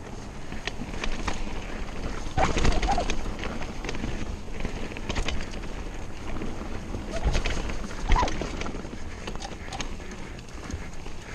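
Mountain bike ridden fast down a dirt forest trail: tyres running over the dirt with the bike rattling and knocking over bumps.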